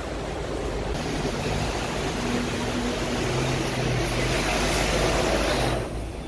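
Hong Kong double-decker tram running along its street tracks, a steady rumble of wheels on rails with a low hum, slowly building and then dropping away abruptly near the end.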